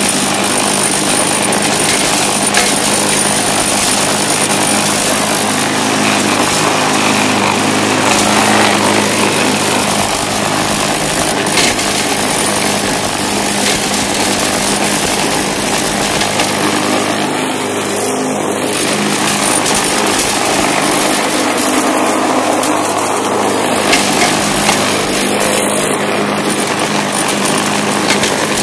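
Bolens mulching push mower's Briggs & Stratton single-cylinder engine running steadily under load while cutting grass, with a few brief clicks over the engine noise.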